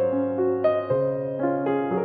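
Background instrumental music played on keyboard: a melody of single notes over a held bass note that changes about a second in.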